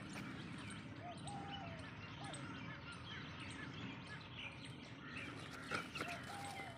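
Small birds chirping again and again over a steady outdoor background hiss. A couple of brief louder knocks come about six seconds in.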